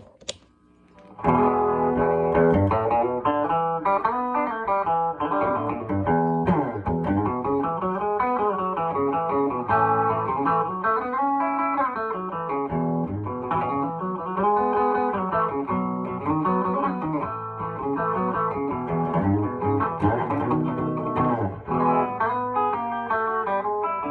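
Mid-1960s Epiphone Olympic electric guitar with a Lollar P90 soap-bar pickup, played with the tone control all the way up: a continuous run of picked single notes and chords that starts about a second in after a small click.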